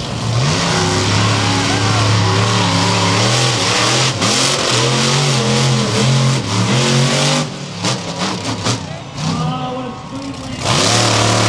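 Monster truck engine revving hard under load as the truck races. The revs drop and blip a few times past the middle, then climb back to full throttle near the end.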